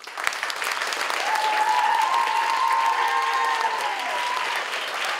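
Audience applause breaks out suddenly as the stage goes dark at the end of a dance piece: dense clapping. From about a second in, high drawn-out cheers from voices in the crowd are held over the clapping for a couple of seconds.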